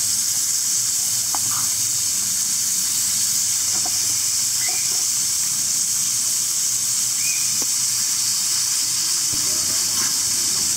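Steak slices with mushroom and onion sizzling in a steel frying pan: a steady high hiss, with a few faint ticks and pops.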